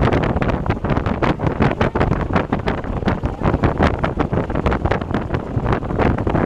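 Wind buffeting the microphone in hard, irregular gusts as the airplane ride swings through the open air.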